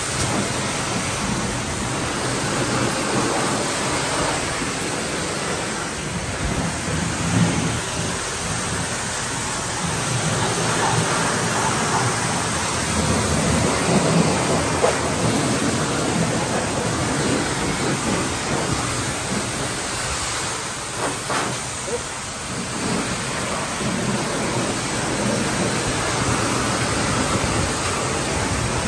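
Pressure-washer wand spraying water into a car's engine bay: a steady hiss of high-pressure spray splashing on the engine and sheet metal.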